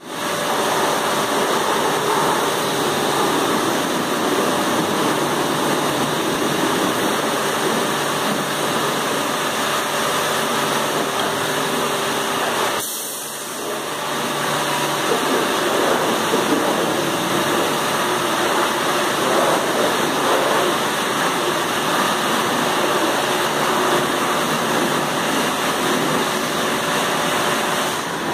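Automatic car wash running: big rotating brushes spinning and water spraying with machine motors, a steady rushing noise that dips briefly about halfway through.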